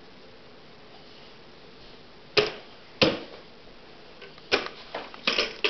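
Sharp knocks of a plastic bucket being banged and pushed about by a toddler. About half a dozen hits start after a couple of seconds of quiet, the last ones coming quicker.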